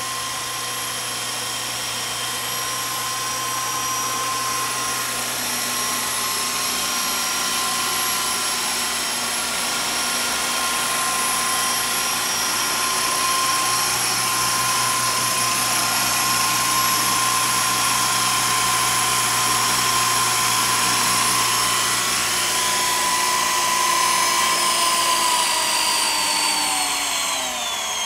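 Walkera Lama 400 RC model helicopter's electric motors and rotor blades whining steadily in flight. Over the last few seconds the whine glides down in pitch as the motors spool down after landing.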